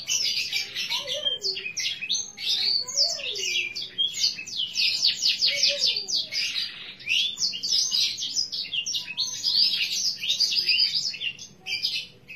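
Green canary singing a long, continuous song of fast, high-pitched trills and chirps.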